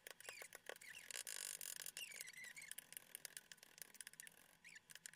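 Cleaver chopping garlic on a bamboo cutting board: quick, light, irregular knocks of the blade on the wood, with a few faint high squeaks.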